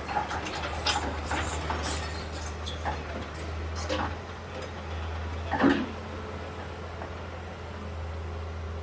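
A heavy demolition machine's engine running steadily, with scattered knocks and clatter of debris and one louder knock about five and a half seconds in.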